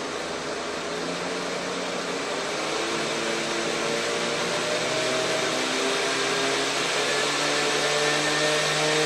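Large-scale model locomotive's electric motor and gears whining as the track voltage is turned up: the pitch climbs slowly and the sound grows steadily louder as the loco speeds up.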